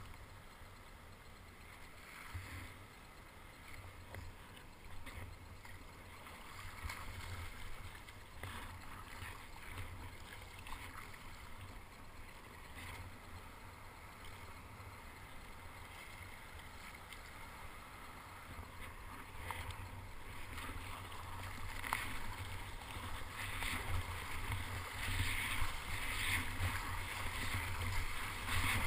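Sea water lapping and splashing against a kayak's hull and paddle, over a steady low rumble. The splashing grows louder and more frequent over the last several seconds as the kayak meets the whitewater of a breaking wave.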